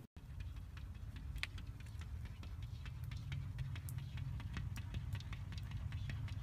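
Persian cat's paws tapping and scratching against a glass pane, an irregular run of light ticks over a steady low rumble.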